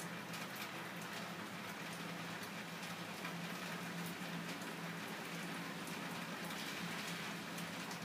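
Light rain pattering: a steady hiss scattered with many faint ticks, over a steady low hum.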